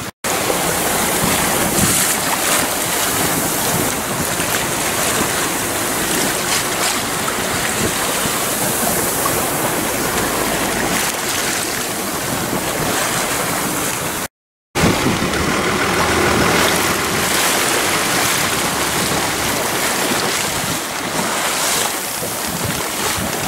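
Wind buffeting the microphone over the rush of water around a boat under way on choppy sea, a steady loud noise. It cuts to silence briefly twice, once near the start and once about halfway.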